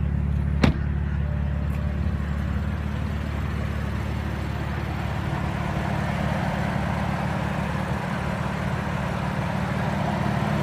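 2016 BMW M3's 3-litre twin-turbo inline-six idling steadily, with a single sharp click just under a second in.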